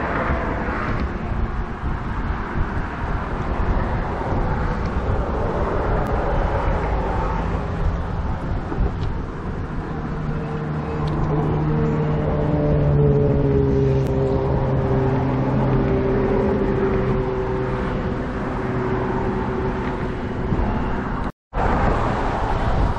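A motor vehicle engine drones over a steady rushing noise, its pitch sinking slowly over several seconds. The sound cuts out for a moment near the end.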